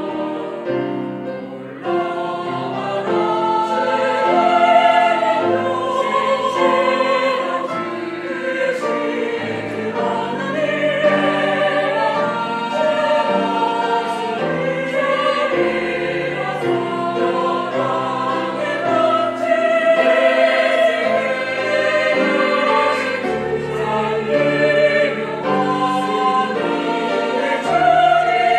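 Mixed church choir singing a hymn in Korean, accompanied by piano, cello and violin.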